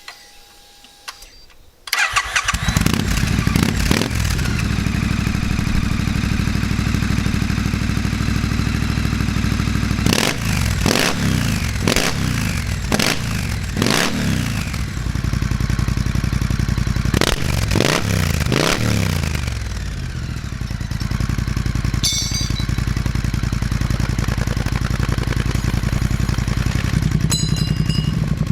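Triumph parallel-twin motorcycle engine with the TEC Dueller 2-2 big-bore decat exhaust and its big-bore (loudest) baffles, started up: it catches about two seconds in and idles, is blipped five times in quick succession around the middle, then three more times a few seconds later, before settling back to idle.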